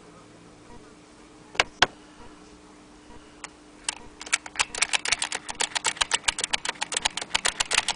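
Blick Featherweight aluminum typewriter being typed on: two single key clicks, then a fast, steady run of keystrokes from about halfway through, several strokes a second.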